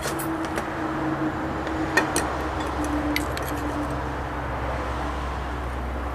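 Silver granules and a metal spoon clinking as the granules are spooned from a plastic tub into a graphite mold. It comes as a few scattered small clicks, the loudest about two seconds in, over a steady low hum.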